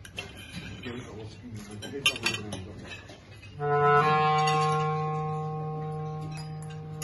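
A few clinks over table noise, then a clarinet comes in about halfway through with a long held note that slowly fades.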